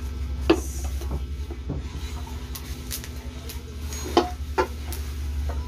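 Plastic and bubble-wrap packaging rustling as aluminium cookware is unwrapped, with a few sharp knocks, the loudest about four seconds in. A steady low hum runs underneath.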